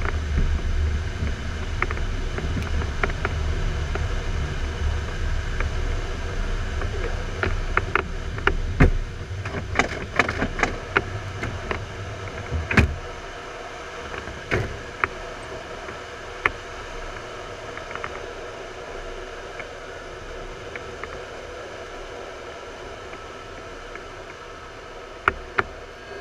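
Airflow rushing past an LS4 glider's cockpit in flight, a steady hiss with a heavy low rumble that drops away about halfway through. Scattered sharp clicks and knocks from inside the cockpit, clustered in the middle and twice near the end.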